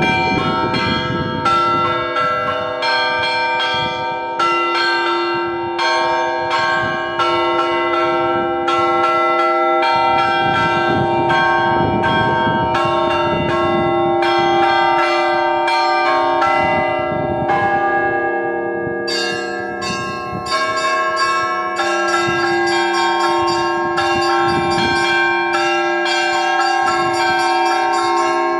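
Russian Orthodox church bells rung in a festal peal: several bells of different pitch are struck in quick succession, and their tones overlap and ring on. The ringing pattern changes about two-thirds of the way through.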